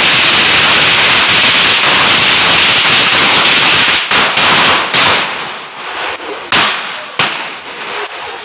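A long hanging string of firecrackers going off in a rapid, unbroken crackle of pops. About four seconds in it thins out to a few last separate bangs as the string burns out.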